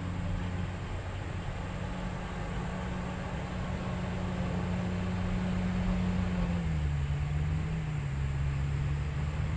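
Hino 500 dump truck's diesel engine labouring under load as the loaded truck crawls up a slippery red-clay track, a steady low drone whose pitch drops about two-thirds of the way through.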